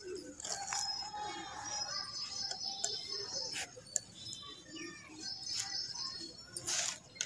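Dry red dirt clumps crumbling and crunching in a squeezing hand, in short gritty crunches; the loudest comes near the end. Birds chirp with high whistling calls over it.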